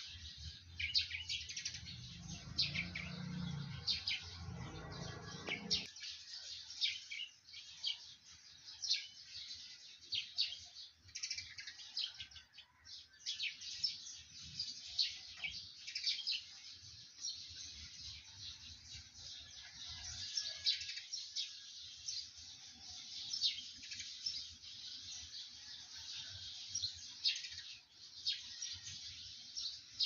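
Many short, high-pitched chirps from small calling animals, overlapping and continuous. A low rumble underneath stops suddenly about six seconds in.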